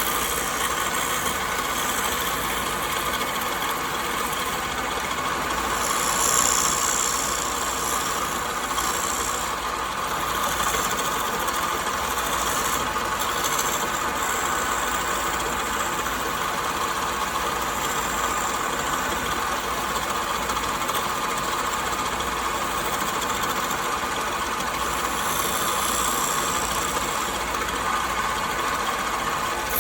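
An electric woodworking power tool running steadily, with a brighter hiss in a couple of stretches, about six seconds in and again near the end.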